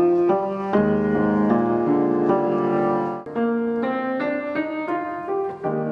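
Background piano music: a melody played over sustained chords.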